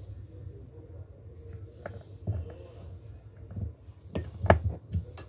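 Light clicks and taps of a thin screwdriver against the parts of a dome IP camera being reassembled. A few scattered clicks are followed by a quicker cluster about four seconds in, over a steady low hum.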